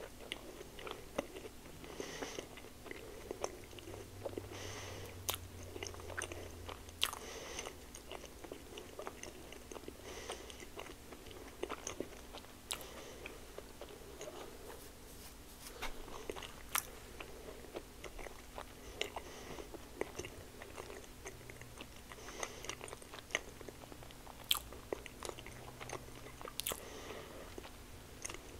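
Close-miked chewing of a bite of blueberry-pancake-wrapped sausage, with many small mouth clicks and smacks scattered throughout.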